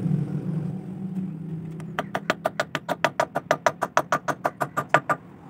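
A fast, even run of sharp metallic clicks, about nine a second for about three seconds, from a hand tool working at the centre of a Fiat 640 tractor's flywheel. Under it is a low steady hum, strongest in the first two seconds.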